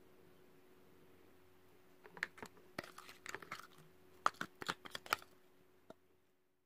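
Marbled slime being squeezed and poked by hand, giving a run of sharp crackling clicks and pops from about two seconds in to about five seconds, with one last click near the end, over a faint steady hum.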